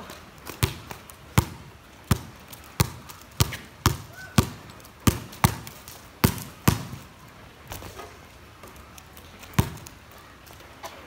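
Basketball bouncing on a wet concrete court, about a dozen sharp dribbles at a bit more than one a second through the first seven seconds, then a single bounce near the end.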